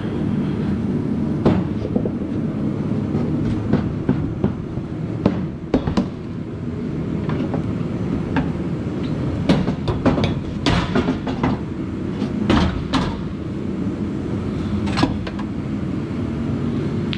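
Irregular metallic knocks and clanks as a racing seat is worked through a race car's steel roll-cage tubing, over a steady low hum.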